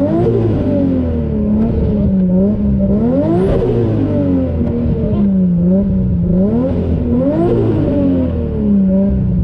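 Nissan Skyline R33's built, turbocharged RB25DET straight-six under hard acceleration, its revs climbing and dropping back again and again, with three big pulls to high revs about a second in, about three and a half seconds in and near seven and a half seconds. The exhaust carries a wastegate screamer pipe.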